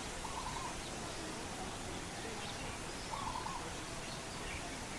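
A bird calling twice, a short pitched call just after the start and another about three seconds in, over a steady background hiss.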